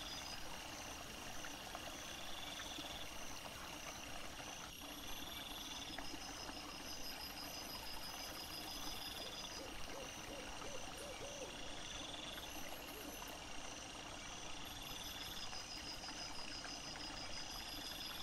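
Night insects trilling over a constant hiss: a high trill that comes back about every two to three seconds, with fainter steady high buzzing above it.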